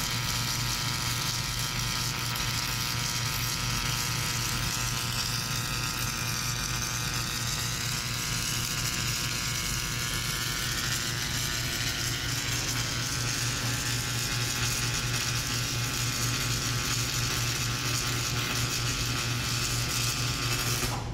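Submerged arc welder running a weld pass under a blanket of granular flux: a steady hiss over a constant low electrical hum.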